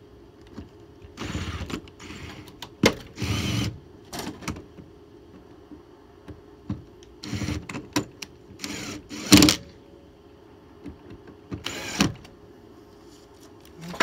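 Screws being driven and the parts of a keyless entry RV door lock handled during installation: about five short bursts of work, each up to a second long, with sharp clicks and knocks between them.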